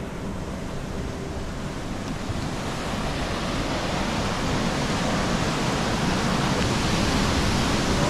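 Rushing river water, a steady wash of noise that grows gradually louder.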